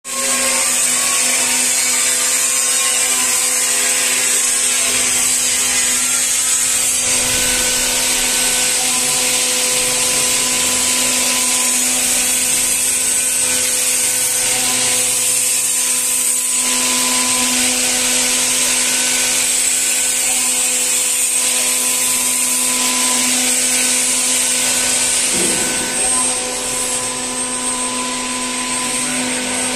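Robot-mounted electric milling spindle running with a steady whine while its cutter mills a wooden block, a dense cutting noise over the whine. It eases a little about four seconds before the end.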